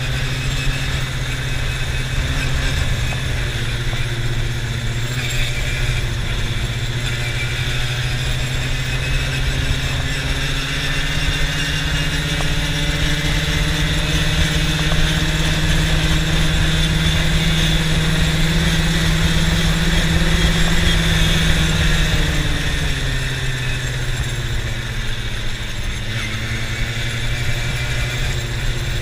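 Quad bike (ATV) engine running under way, heard from the rider's seat. Its pitch climbs slowly through the middle, drops back about two-thirds of the way through, and picks up again near the end.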